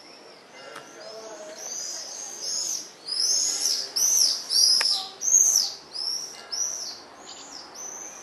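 Birds calling: a run of high, arched chirps that grows louder about three seconds in and fades toward the end.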